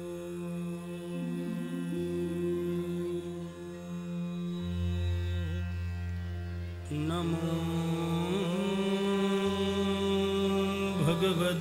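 Slow devotional music: sustained drone chords over a deep bass note that changes every few seconds. About seven seconds in, a voice joins with long, gliding sung notes, as a chant or bhajan begins.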